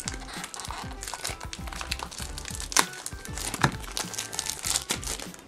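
Plastic toy packaging crinkling and crackling as it is handled and unwrapped, with a few sharper crackles near the middle, over quiet background music.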